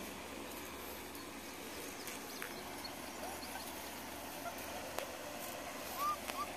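Puppies play-fighting, giving a few short, faint high-pitched yips and squeaks, mostly near the end.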